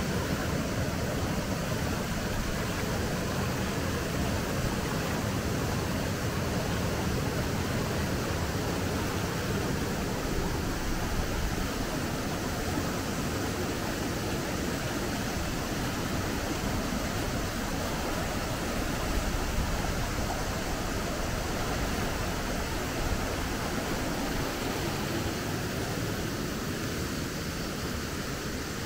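The Sorgue river rushing over a low weir and through white-water rapids: a steady, even water noise that gets a little softer near the end.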